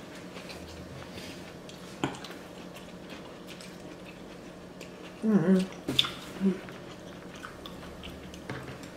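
Close-miked chewing of a fried egg roll, with a sharp crisp click about two seconds in and again about six seconds in. A short hum breaks in around five seconds in, and again briefly just after.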